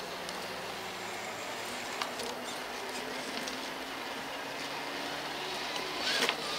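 Steady electric motor and gear whine of 1/10-scale Traxxas TRX-4 RC crawler trucks creeping over a leafy, rocky trail, with scattered small clicks from tyres and chassis on rocks and a louder crunch near the end.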